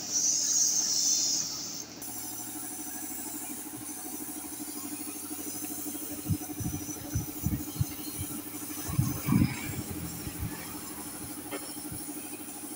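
Air-fed paint spray gun hissing loudly for about the first two seconds, then stopping suddenly. After that a steady low mechanical hum continues, with scattered low thumps.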